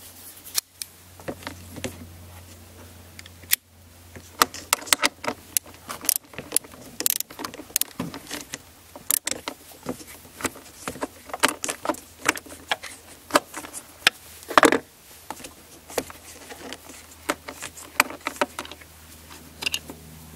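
Ratchet and 8 mm socket clicking and rattling as the bolts holding a mass airflow sensor housing are undone. The sharp metallic clicks come in irregular runs from a few seconds in, with one longer, louder clatter about two-thirds of the way through, over a low steady hum.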